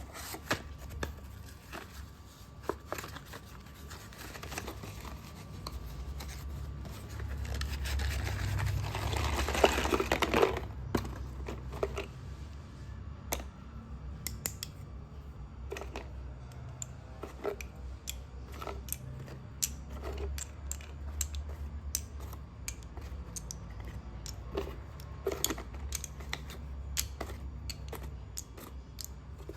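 Slate pencils crunching and cracking in a string of short, sharp snaps, with a louder stretch of scraping rustle about a third of the way in.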